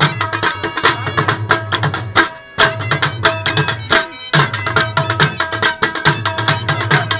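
Dhol, the double-headed barrel drum, beaten in a fast dance rhythm, with a steady held high tone running under the beat. The music breaks off briefly twice, about two and a half and four seconds in.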